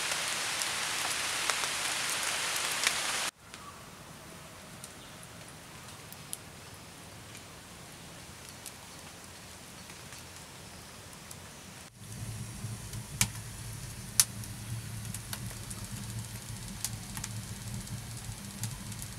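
A loud steady hiss for about three seconds, then a quieter hiss with scattered faint ticks. From about twelve seconds in, a wood fire burns in a mud hut's wall fireplace with a low roar and sharp crackling pops.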